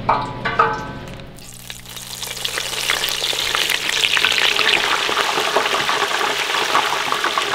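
Breaded perch fillets frying in hot oil in an electric deep fryer: the oil sizzles and crackles, building up from about two seconds in and staying loud.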